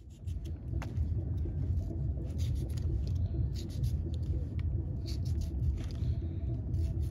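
A knife slicing tomato wedges held in the hand, with pieces dropping onto a foil plate, giving scattered light clicks and taps. Under it runs a louder steady low rumble.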